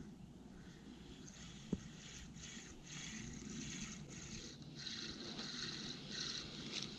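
Spinning reel being cranked to retrieve a cast, a soft steady whir broken by short pauses, with wind rumbling on the microphone. A single sharp tick a little under two seconds in.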